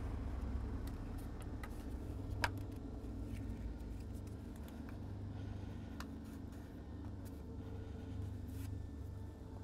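Light plastic clicks and taps as small plastic glazing packers are handled and pushed into place between the glass and the uPVC door frame, one sharper click about two and a half seconds in, over a low steady rumble.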